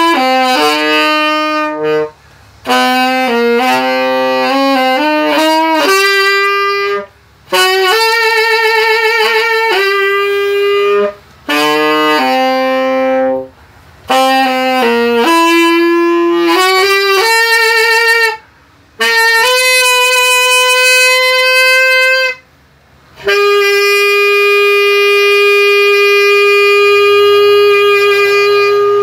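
A solo saxophone playing a slow melody in phrases broken by short breathing pauses, some notes with vibrato. It ends on one long held note of about six seconds.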